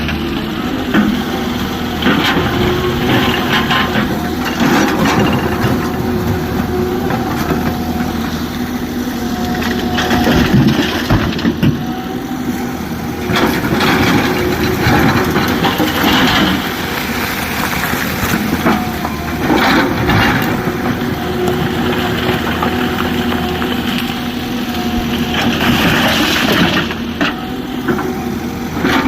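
Excavator's diesel engine running steadily under load while rock and stone crash and rattle into a tipper truck's steel bed, several times as bucketloads are dumped.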